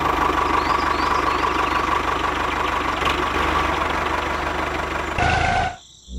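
Diesel tractor engine running with a rapid, even chugging, then a brief horn-like beep near the end before the sound cuts off suddenly.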